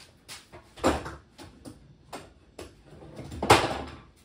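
Clatter of tools being handled: a run of light clicks and knocks, with two louder rattling crashes, one about a second in and one about three and a half seconds in.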